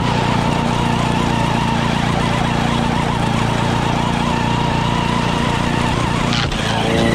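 Push mower's small single-cylinder gas engine running steadily at full throttle, its blade cutting grass as a Traxxas Sledge RC truck tows it, with a wavering high whine from the truck's electric motor. The sound dips briefly near the end.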